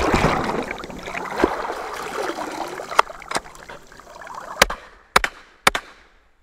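Water splashing and sloshing around a shooter wading in a river, then a Hi-Point pistol-calibre carbine firing several sharp shots over the second half, the last three loudest. The carbine has just come out of full submersion in the water.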